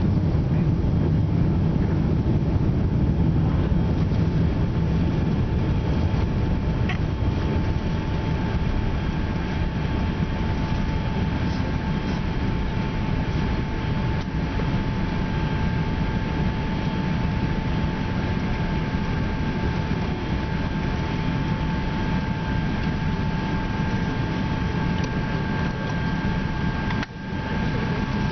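Inside an Airbus A380 cabin during the landing run: the steady rumble of the engines and airframe, easing a little over the first several seconds, with a faint steady whine above it. It drops out briefly near the end.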